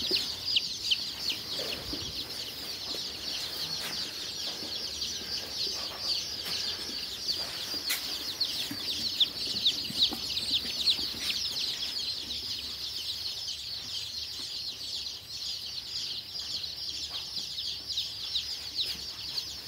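A large batch of day-old chicks peeping all at once: a dense, unbroken chorus of short, high-pitched falling peeps overlapping one another.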